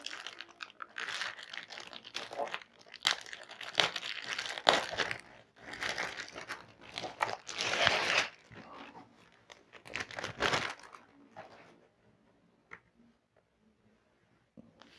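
Plastic packaging crinkling and tearing in irregular bursts as a new laptop is unwrapped. The noise stops about eleven seconds in, and one faint tick follows.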